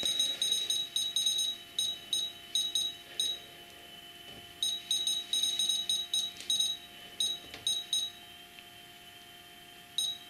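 Futaba T8FG radio transmitter beeping, one short high beep for each step as its dial scrolls a throttle-curve value down. The beeps come in quick runs, pause briefly, run again, then thin out to a few single beeps.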